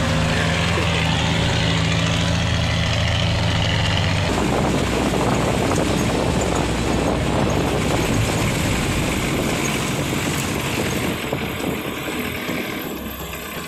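Off-road 4x4 engine idling steadily. About four seconds in it gives way to the noise of a vehicle driving along a rough dirt trail, engine and jostling mixed, which grows a little quieter near the end.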